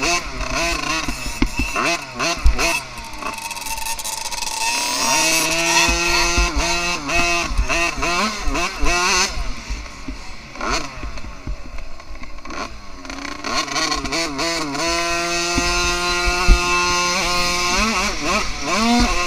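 Small two-stroke motocross bike engine, a KTM 50 SXS, revving under throttle. Its pitch climbs and then holds steady at high revs twice, with sharp knocks now and then over the track.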